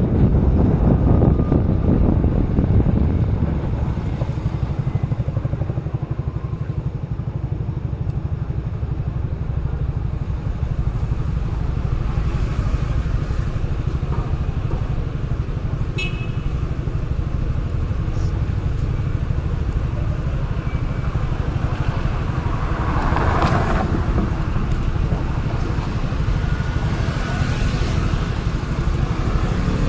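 Town street traffic heard from a car: a steady low engine rumble, with motor scooters around and one vehicle passing louder about two-thirds of the way in.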